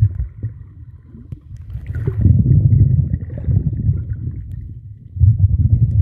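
Muffled low rumbling of water moving around an underwater camera, swelling in surges, one about two seconds in and another near the end.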